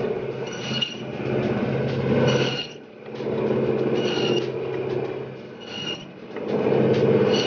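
Meat bandsaw running and cutting through a leg of lamb: a steady motor hum with a rasping cutting sound that swells and eases as the leg is pushed through, dipping twice.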